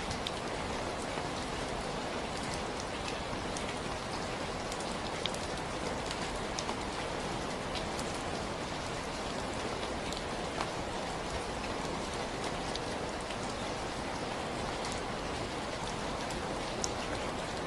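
Steady, even rainfall, with many small drop taps scattered through it.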